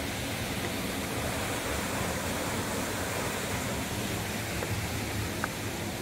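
Steady rush of falling water from a nearby waterfall, even and unbroken, with one faint click near the end.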